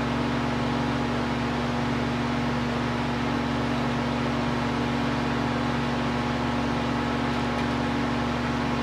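Steady machine hum with a constant hiss and a low drone, unchanging throughout, like a running fan or blower.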